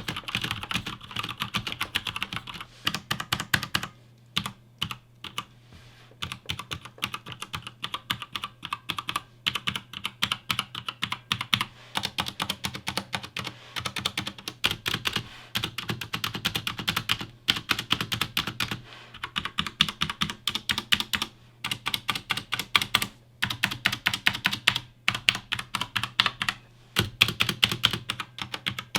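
Typing on a mechanical keyboard with Cherry MX Red linear switches and PBT keycaps: fast runs of key clicks and clacks, broken by short pauses.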